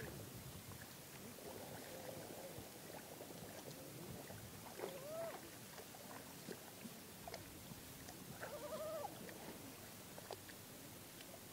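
Soft splashing and squelching of hands groping through shallow muddy water and grass, with scattered small clicks. Two brief pitched calls cut in, an arched one about five seconds in and a wavering one near nine seconds.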